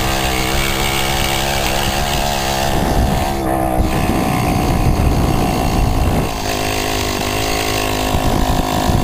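Two-stroke Puch moped engine running at a steady speed, then revved up harder and rougher for about three and a half seconds starting near three seconds in, before settling back to a steady note.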